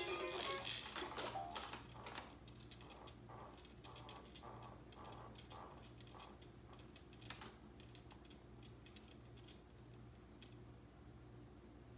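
A Fisher-Price baby jumper's electronic toy music plays and stops about two seconds in. Soft pulsing and faint scattered clicks from the plastic toy tray follow, with one sharper click about seven seconds in.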